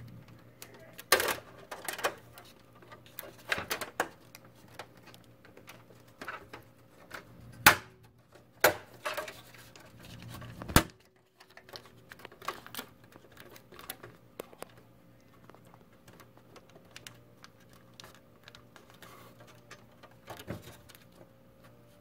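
Thin metal I/O shield being pressed and snapped into the rear opening of a PC case: scattered sharp metallic clicks and snaps, the loudest about a second in and around eight to eleven seconds in. The clicks thin out to occasional faint ticks in the second half, over a low steady hum.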